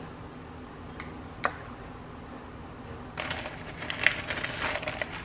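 A spoon clinks twice against a small glass cup, then a plastic bag of seaweed sheets crinkles and rustles for about two seconds near the end, the loudest sound.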